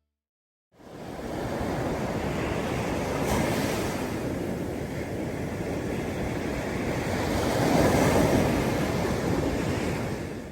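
Strong wind rushing over the microphone, a loud, steady roar that swells a little about three seconds in and again near the end; it starts after about a second of silence.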